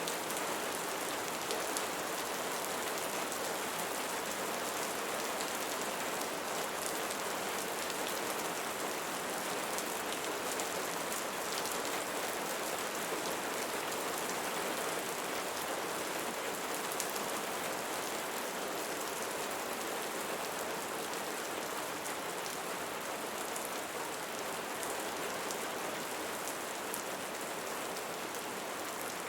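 Steady rain falling on a surface, an even hiss with faint fine drop patter, unchanging throughout.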